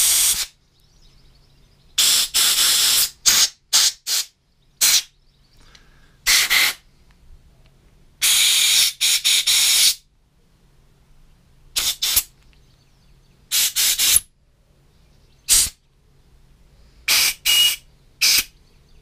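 Compressed-air blow gun giving about eighteen irregular blasts of air into a lawnmower carburettor's jets and passages to blow out dirt and stale-fuel residue. Most are short puffs, and two run for one to two seconds.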